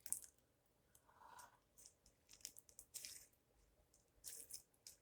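Slime being squished and stretched by hand, giving faint, scattered crackling and popping clicks.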